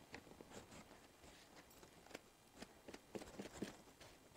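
Near silence with a few faint light taps and brushing sounds, spaced irregularly: a glue brush being dipped in a plate of Mod Podge and dabbed onto tissue paper.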